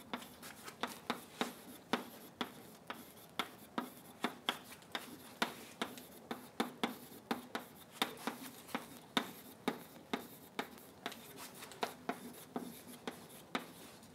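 Chalk writing on a chalkboard: a steady run of short, sharp taps and brief scrapes, about two or three a second, as the chalk strikes and drags across the slate.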